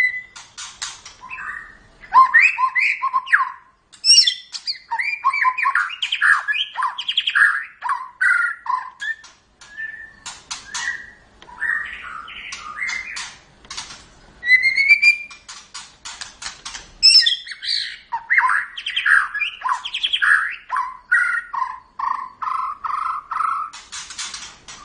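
White-rumped shama (murai batu) singing a long, varied song: whistled phrases, rising glides and fast clicking rattles, with short pauses between phrases.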